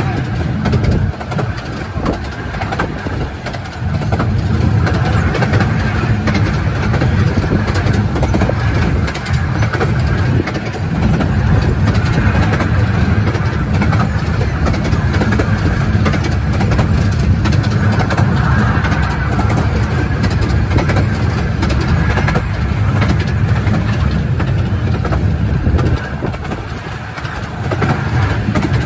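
A 15-inch gauge miniature railway carriage running along the track: a steady, loud rumble of wheels and running gear, easing briefly near the end.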